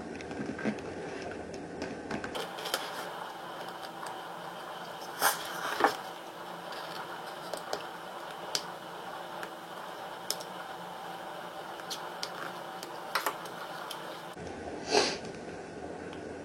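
Hand tools working vinyl wrap film: scattered light clicks and scrapes over a steady room hum, with a few sharper clicks about five to six seconds in and near the end.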